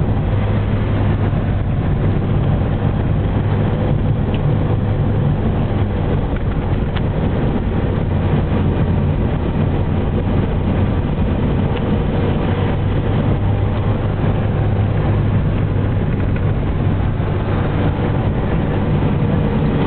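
Engine and road noise of a vehicle being driven at a steady pace, a steady low hum that does not change.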